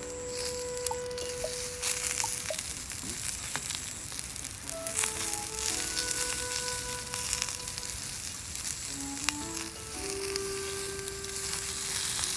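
Food sizzling steadily over a campfire, with scattered sharp pops, under background music of slow held notes.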